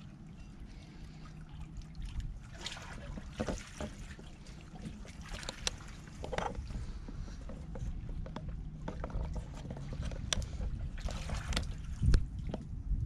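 Small waves washing and splashing among concrete tetrapods at the water's edge, over a steady low rumble, with scattered light clicks and knocks and a louder knock near the end.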